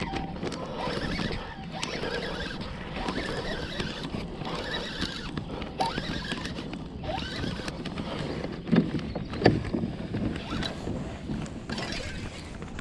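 Water lapping and splashing around a kayak's hull, with irregular handling noise and two louder knocks a little under a second apart, about nine seconds in.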